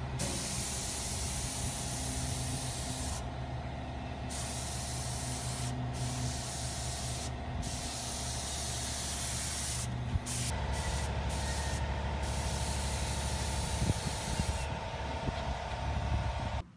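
Gravity-feed spray gun hissing as it sprays automotive red paint in trigger-pulled passes, the hiss breaking off briefly several times between passes. A steady low hum runs underneath.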